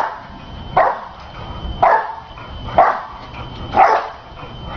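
A dog barking in single barks, about once a second, four times over.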